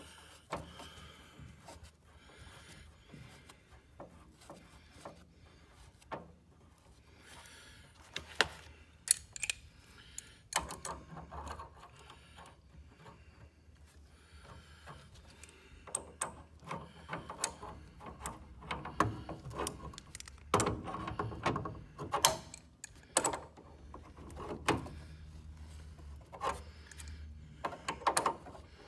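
Metal clicks, taps and scraping of wrenches working the brass nut on the liquid-line piston fitting as it is tightened down, irregular and busier in the second half, with a few sharper clicks. A faint low hum runs underneath.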